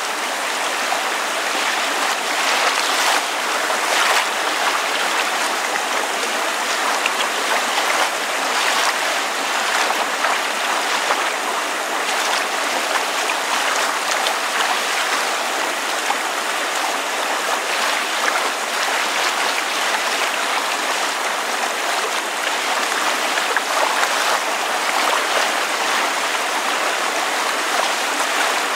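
Water lapping and splashing with rain falling, a steady, even wash of sound.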